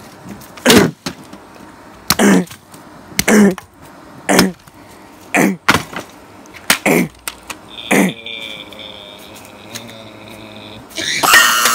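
A series of heavy knocks, about one a second, for the first eight seconds. Then a steady high whine for about three seconds, and a loud rush of noise near the end.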